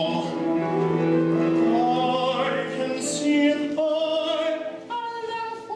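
A young man singing a comic musical-theatre song with a wavering vibrato: a long held note at the start, then a run of shorter notes and another held note near the end.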